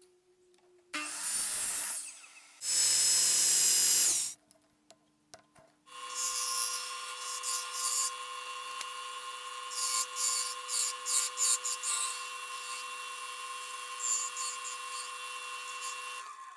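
Small wood lathe running with a steady whine while a hand-held turning tool cuts a small wooden knob, the cuts coming as repeated scraping, rasping bursts. In the first few seconds, before the lathe, there are two short loud bursts of noise.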